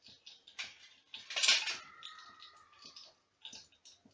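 Whole spices (cinnamon stick, cardamom and cloves) crackling in hot oil in a pot, with scattered small pops. About a second and a half in comes a louder hiss, followed by a drawn-out squeal that falls slightly in pitch for about a second.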